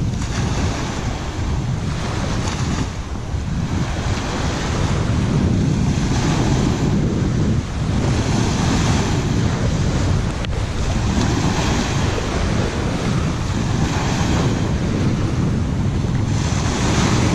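Wind buffeting the microphone over the wash of waves on the shore: a steady rumbling rush that swells and eases every few seconds.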